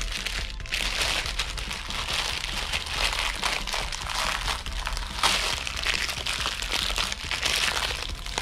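Plastic fidget-toy packaging crinkling and crackling steadily as it is squeezed and pulled hard to get it open.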